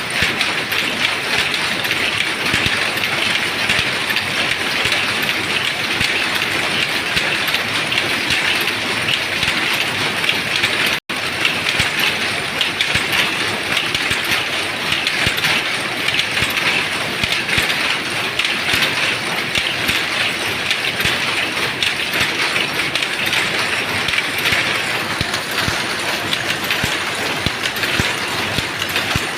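Dobby power loom weaving terry towel: a loud, steady mechanical clatter of rapid clicks and knocks. It cuts out for a split second about eleven seconds in.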